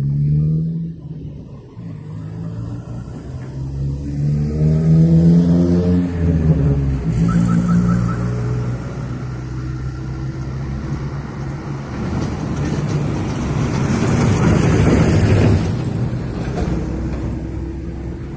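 Street traffic driving past: a truck and cars go by, their engine notes rising and falling over the first several seconds, then a louder rush as a car passes about three-quarters of the way through.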